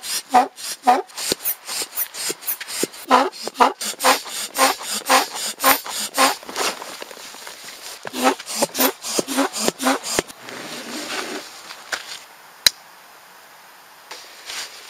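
Foot-operated bellows pump inflating an inflatable kayak and its seat through a hose: rapid, even strokes, about two to three a second, each a short puff of air with a low tone to it. The pumping stops about ten seconds in, followed by a brief hiss and, a little later, a single sharp click.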